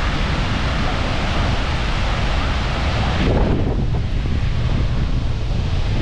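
Rushing water of Skógafoss waterfall, with cold wind buffeting the microphone in a low rumble. About halfway through, the high hiss of the water drops away abruptly, leaving mostly the wind rumble.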